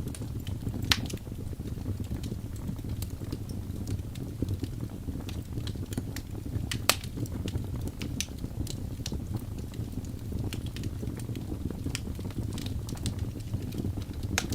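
Wood fire in a fireplace burning with a steady low rumble and irregular crackles and pops, two sharper pops standing out about a second in and about seven seconds in.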